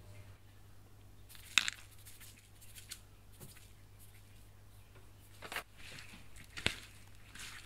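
Salt sprinkled from a plastic measuring spoon onto a tray of raw pond smelt (wakasagi), then hands gently rubbing the wet salted fish to scrub off dirt and slime: soft squishing and rustling with several sharp clicks, the loudest about a second and a half in.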